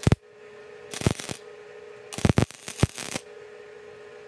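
Welder laying short bursts of weld to fill trim holes in the sheet-metal side of a truck bed: a brief burst at the start, another about a second in, and a longer one of about a second near the middle, over a steady hum.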